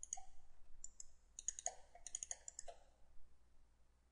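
Computer mouse buttons clicking faintly in quick clusters, many of them in pairs, stopping about three seconds in.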